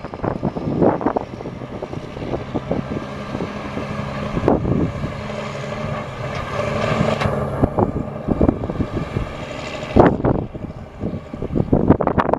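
Cummins 10.8 L inline-six diesel engine of a mixer truck running steadily, with gusts of wind buffeting the microphone several times.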